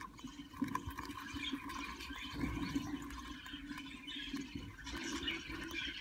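Budgerigars in a nest box making a continuous scratchy chittering, with small irregular ticks through it.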